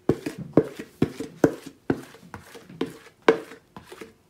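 Chocolate cake batter being scraped out of a plastic mixing bowl into a metal tube pan: a run of short knocks and scrapes, about two a second.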